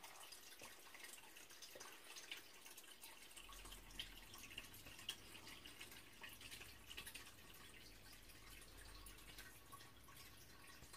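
Near silence: room tone with faint scattered ticks.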